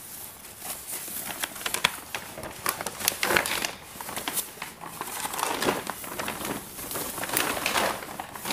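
Plastic tarpaulin fish-pond liner crinkling and rustling as it is unfolded and handled, in irregular crinkles and swishes.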